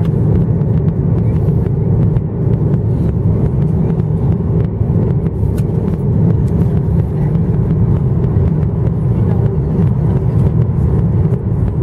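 Steady low rumble of cabin noise inside a Boeing 737-900ER descending on approach with flaps extended: engine and airflow noise from its CFM56-7B turbofans and the passing air.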